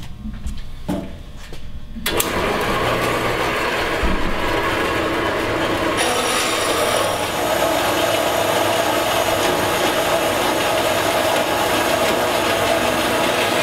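Small horizontal metal-cutting bandsaw starting about two seconds in and running steadily as it saws a blank off a bar of 440C stainless steel. About six seconds in the sound grows denser and a thin high whine comes in.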